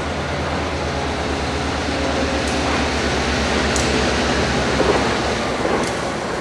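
Conrail GP10 diesel-electric locomotives (rebuilt EMD GP9s) approaching slowly, their engines running with a steady low rumble and a few faint short high ticks.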